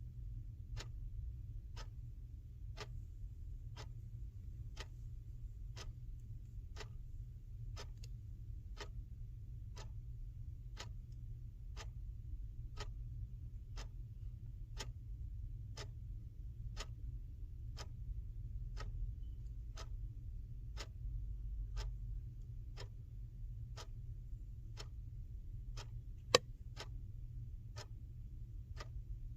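Clock ticking steadily at about one tick a second over a low, steady hum, with one much louder tick near the end.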